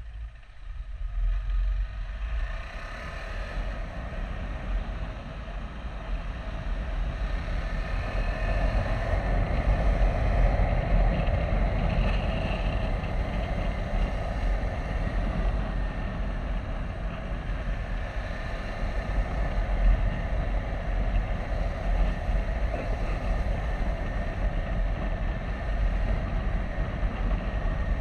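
KTM 390 Adventure's single-cylinder engine running as the motorcycle rides along a wet road, with wind rush over the microphone. It is quieter for the first couple of seconds, then grows louder as the bike speeds up out of a slow bend.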